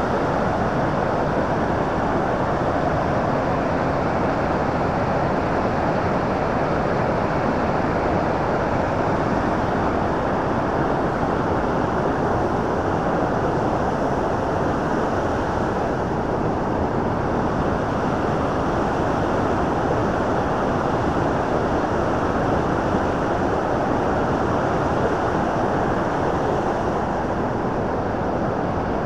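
Bow River rushing through the rapids leading to Bow Falls: a steady, unbroken noise of fast water.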